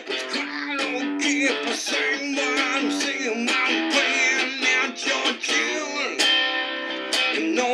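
Electric guitar strummed and picked in a steady run of notes, some of them wavering in pitch.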